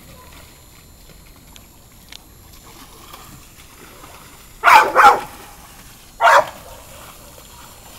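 A dog barking three times: two quick barks close together, then a single bark a little over a second later.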